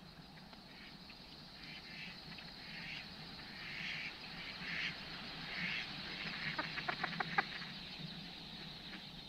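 Ducks quacking repeatedly as a flock works overhead, with a quick run of short, sharp calls about seven seconds in.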